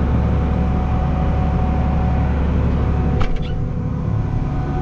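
Tractor engine running steadily with a deep hum. About three seconds in there is a click, and after it the engine's deep hum drops and gets a little quieter.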